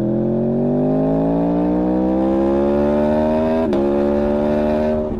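Motorcycle engine accelerating hard, its pitch climbing steadily for over three seconds. About three and a half seconds in the pitch drops abruptly with an upshift, then holds steady before the sound falls off near the end.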